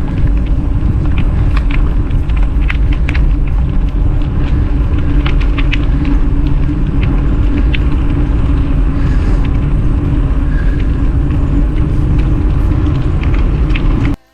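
Wind rumble on the microphone and tyre noise from an e-bike riding along a rail trail, with a steady hum and scattered light ticks from the surface. The sound cuts out abruptly for a moment near the end.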